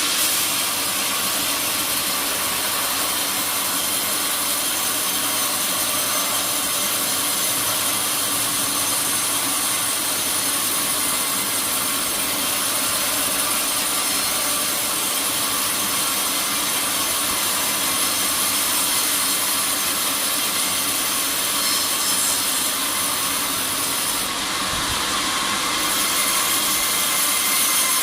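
A sawmill saw cutting steadily through a teak log, a continuous loud sawing noise.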